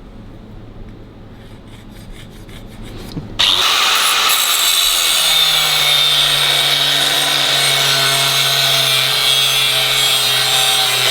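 A low workshop hum, then about three seconds in a power grinder starts grinding on steel with a loud, steady abrasive rasp that continues to the end, as the edges of the fabricated steel clamp are smoothed.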